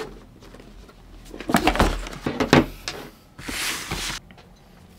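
Handling and movement noises of a person settling in at a wooden desk. There are a few knocks and scrapes about one and a half to two and a half seconds in, then a short rustle just before four seconds.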